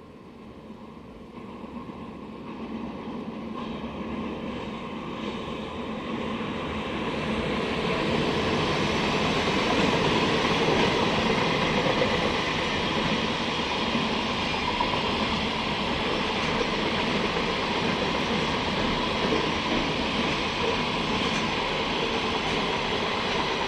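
Freight train running past on the line: the wheels' rumble and rattle on the rails builds steadily over the first eight seconds as the train approaches, then holds loud and even as the wagons roll by.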